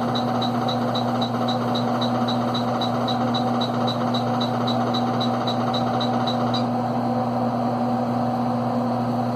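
Steady hum and fan noise of a running PDP-12 minicomputer. Short high ticks come about four times a second while the tape data test verifies the tape's data against its checksum, and they stop about two-thirds of the way through.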